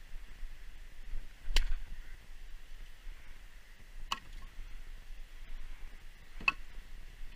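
Firewood being split: three sharp chopping strikes, about two and a half seconds apart.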